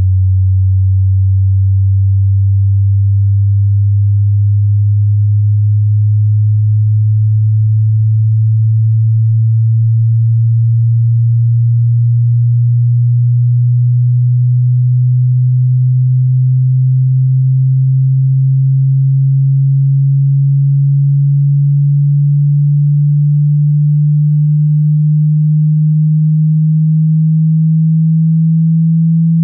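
Pure sine test tone, very low in pitch and gliding slowly and steadily upward: the slow frequency sweep of a hearing test.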